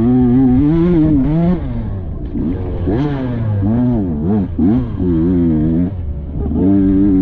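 Off-road dirt bike engine revving up and down over and over as the throttle is worked on and off through the trail, with several short drops in revs along the way.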